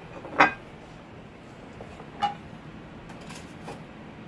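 A few separate clinks of serving utensils against dishes while food is plated: a loud one about half a second in, another about two seconds in with a short ring, and a couple of faint taps near the end.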